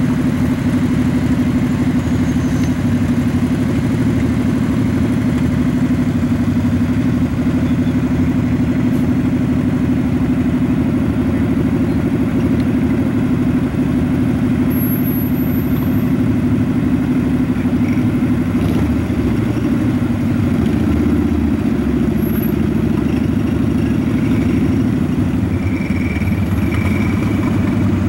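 Cruiser motorcycle engine idling steadily.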